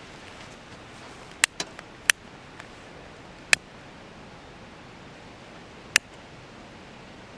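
Wood fire crackling: about five sharp, sudden pops spaced irregularly over a few seconds, over a steady low hiss.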